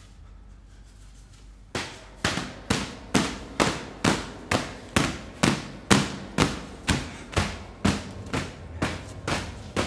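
A steady beat of sharp, heavy thuds, about two a second, starts about two seconds in and keeps an even pace, with a low hum coming in beneath it.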